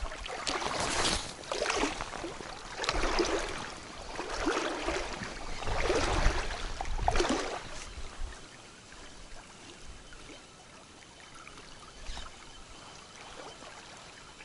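River water sloshing and splashing around a wader's legs in several surges over the first eight seconds, then settling to a quieter wash.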